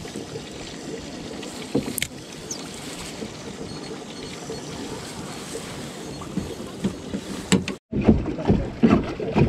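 Steady wash of water against a small boat with a little wind on the microphone, and one sharp click about two seconds in. After a cut near the end come louder, uneven knocks and water noise.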